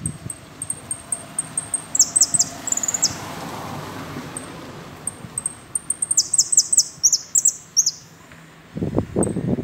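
Caged saffron finch (Argentine jilguero) singing: two quick bursts of sharp, very high chirps, one about two seconds in and a longer one near the middle, with thin high notes between them. A brief low noise comes in right at the end.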